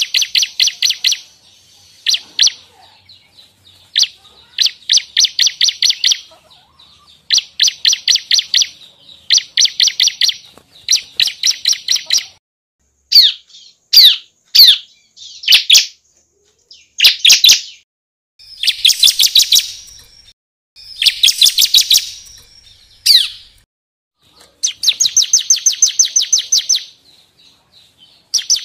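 Bar-winged prinia (ciblek) singing: repeated bursts of fast, evenly spaced high notes, each burst one to two seconds long. In the middle come a run of single sharp notes and two harsher, buzzier phrases.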